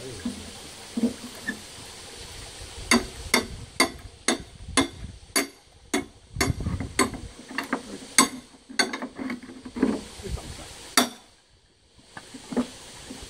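Repeated sharp knocks, about two a second, of a blade being driven into the end of a green bamboo pole to split it; the knocks stop about eleven seconds in.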